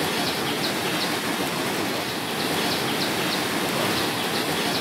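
Steady rushing noise of water from the heavy rain, with short high chirps repeating through it every half second or so.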